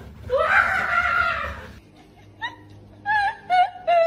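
A long, loud, wavering cry of about a second and a half. After a cut, a person laughs in short, quick, high-pitched bursts.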